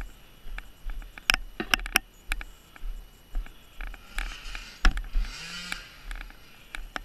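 Dirt bike rolling down a rough, rutted dirt trail: irregular knocks, clatter and rattles from the bike. There are a couple of brief scraping hisses from about four seconds in.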